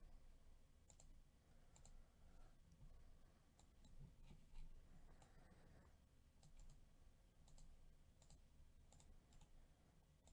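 Faint computer mouse clicks over near-silent room tone, about a dozen scattered at irregular intervals.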